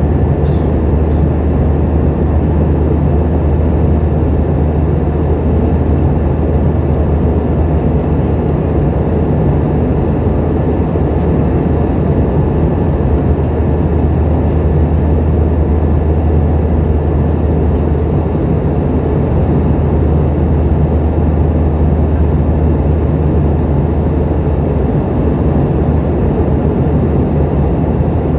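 Boeing 717-200 airliner in flight, heard from inside the cabin: a steady, loud low rumble of its rear-mounted Rolls-Royce BR715 turbofans and the airflow, unchanging throughout.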